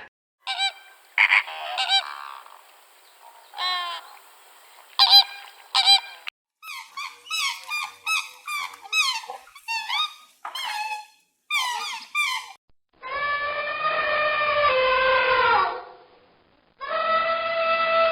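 Animal calls: many short pitched calls in quick succession, then near the end one long call of about three seconds and a shorter one, each sliding down in pitch.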